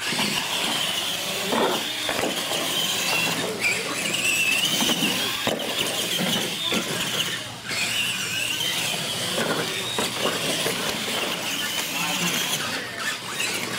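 Electric R/C monster trucks racing on a concrete floor: their motors give a wavering high whine that rises and falls as they speed down the lane, with tires scrubbing on the concrete.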